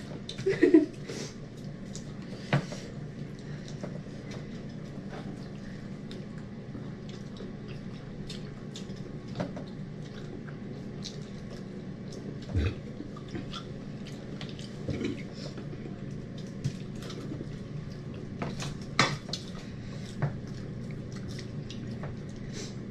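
Scattered clicks and clinks of plates, bowls and utensils as people eat by hand from a shared platter, over a steady low hum. A few knocks stand out, one of them about two and a half seconds in and two more near the end.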